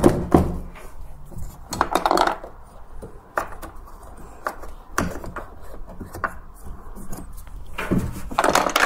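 Hand work with a screwdriver on a dryer's drive-motor mounting: scattered clicks and knocks of tool, metal and plastic, with denser rustling handling about two seconds in and again near the end.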